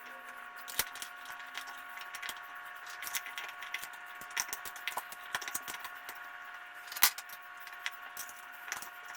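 Scattered light clicks, taps and small rattles of a small air compressor's cover and screws being fitted back in place by hand, with one louder knock about seven seconds in, over a faint steady hum.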